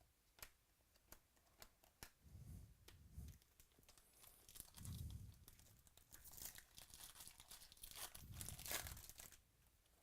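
Faint tearing and crinkling of a foil trading-card pack wrapper being opened. The crinkling is strongest from about the middle to near the end, with scattered soft clicks of cards being handled before it.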